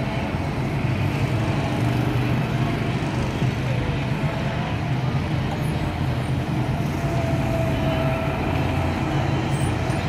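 Several go-kart engines running steadily as the karts lap the track, a continuous mechanical hum with a brief thin whine about seven seconds in.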